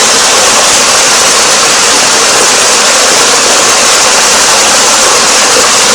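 Steady rushing water, as from a waterfall or fast river: a loud, constant hiss with no rise and fall.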